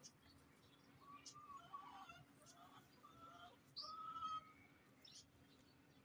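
Faint chirping of small birds: a scatter of short calls starting about a second in, the loudest just before the middle, over a low steady hum.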